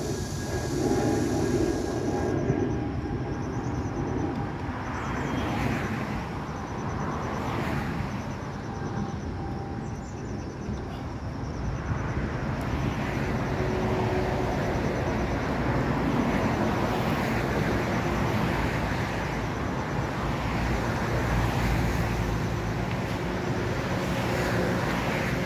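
Road traffic: cars and vans passing, a steady tyre and engine noise that swells and fades as each vehicle goes by.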